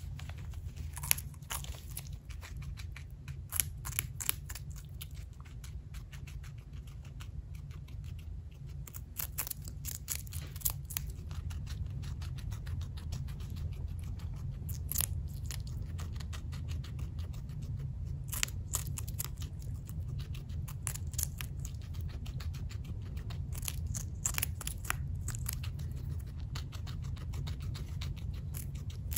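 Guinea pig biting and chewing a slice of green bell pepper: crisp crunching clicks come in clusters with short pauses between, over a steady low hum.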